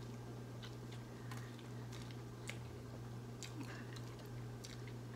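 A man chewing a mouthful of chicken sandwich with his mouth closed: faint, irregular small clicks and smacks, over a steady low hum.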